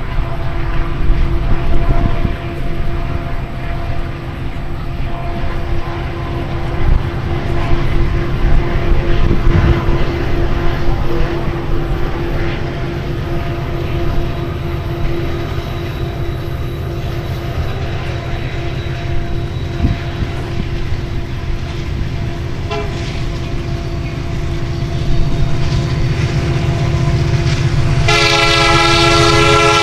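Union Pacific diesel freight locomotives running as the train approaches: a steady low rumble with a constant engine drone. About two seconds before the end the lead locomotive sounds its air horn, a loud chord of several notes.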